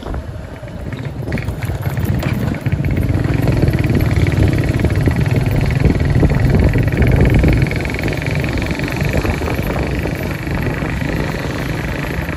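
Small Honda GL motorcycle under way, its engine running under a rush of riding wind. The noise grows over the first few seconds and drops back a little about eight seconds in.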